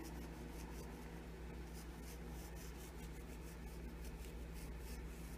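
Faint, irregular scratchy patter of salt being rubbed between fingers and sprinkled over raw rolled chicken breasts, over a low steady hum.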